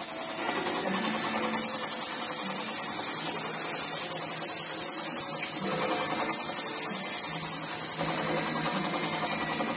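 Loud bursts of compressed-air hiss from paint-shop air equipment: a short one at the start, one of about four seconds, then one of about two seconds, each cut off sharply. A small motor runs steadily underneath.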